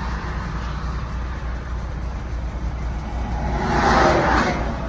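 Steady low engine hum of a vehicle parked at the roadside. About three and a half seconds in, a vehicle passes, its noise swelling and fading within about a second.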